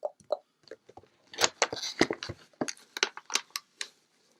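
Cardboard-and-plastic booster box packaging being handled and picked at by hand: a run of crackles and clicks, with a denser crinkling about one and a half seconds in.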